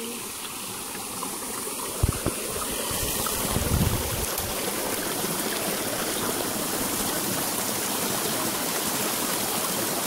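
Creek water running over rocks, a steady rush that grows louder over the first three seconds and then holds. A sharp thump about two seconds in and a brief low rumble near four seconds.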